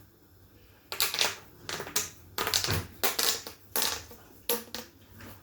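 Plastic fidget tubes being handled, giving a series of sharp plastic clicks and crackles, singly and in quick pairs.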